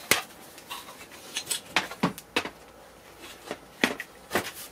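Irregular sharp clicks and knocks of a PC case and its cables being handled, about a dozen taps with the sharpest just after the start.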